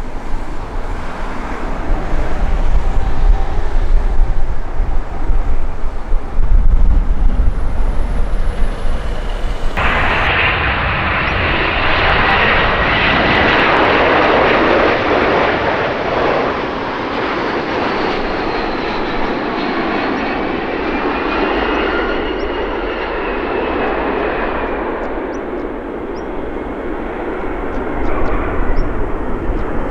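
Large aircraft engines passing close by, a loud roar that slowly fades with a faint whine in it. Before that, a low rumble that ends in an abrupt cut about ten seconds in.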